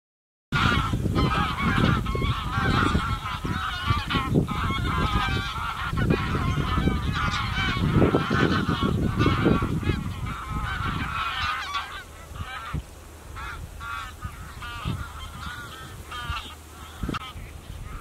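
A large flock of geese honking, many calls overlapping, thinning to scattered calls after about twelve seconds.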